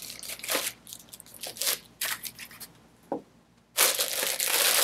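Styrofoam packing end caps being pulled off a small computer wrapped in a clear plastic bag, heard as a series of short scrapes and crinkles. Near the end comes a louder, continuous crinkling of the plastic bag.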